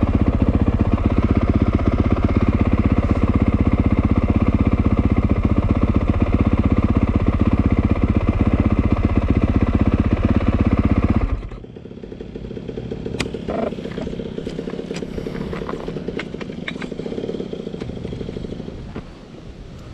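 Honda CRF450R's single-cylinder four-stroke engine idling steadily, then cutting out abruptly about eleven seconds in. After that it is much quieter, with a few sharp clicks and another dirt bike's engine running in the distance.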